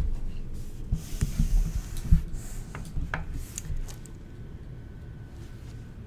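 Rustling and a few scattered knocks close to the microphone, then a steady faint hum with a thin high tone.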